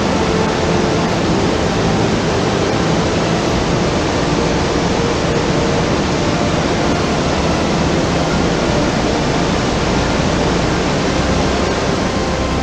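Nymph Falls on the Puntledge River, water cascading over rock ledges in a steady, loud rush.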